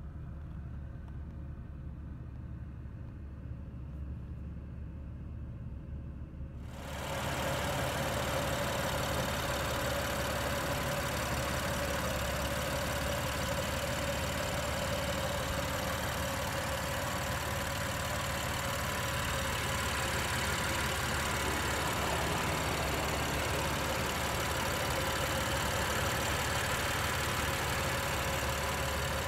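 A BMW M3's 3.0-litre twin-turbocharged inline-six idling steadily. At first only a low muffled hum is heard from inside the cabin. About seven seconds in it turns louder and fuller, heard from the open engine bay, with a steady whine over the idle.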